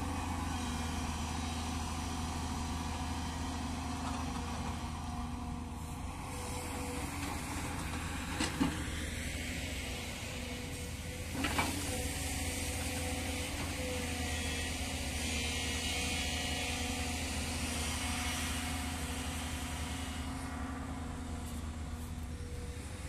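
Diesel engines of earthmoving machinery running steadily with a low drone, and two brief knocks about eight and eleven seconds in.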